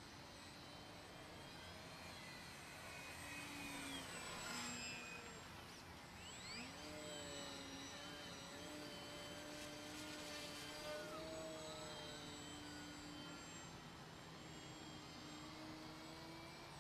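Faint whine from the electric motor and propeller of a Carbon-Z Yak 54 3X RC aerobatic plane flying overhead. Its pitch shifts with the throttle, dipping around four seconds in and rising sharply about six and a half seconds in.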